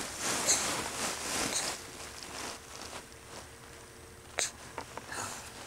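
Close breathy rustling as a baby's face and hands press against the camcorder microphone, loudest in the first two seconds and then quieter, with a single sharp click about four seconds in.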